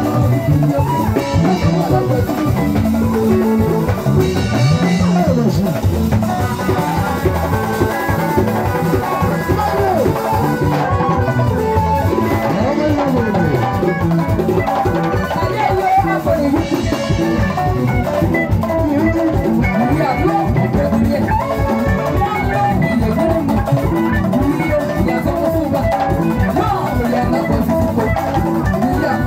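Loud live band music over a PA system, with drums and guitar keeping a steady dance beat, and a woman singing into a microphone.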